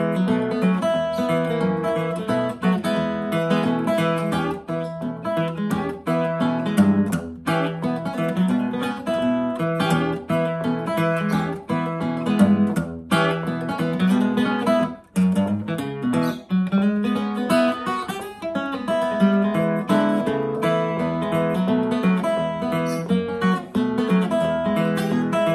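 1930 Gibson L-5 archtop guitar played fingerstyle with a thumb pick, in open D tuning with a capo at the second fret: a steady thumbed bass line under picked melody notes.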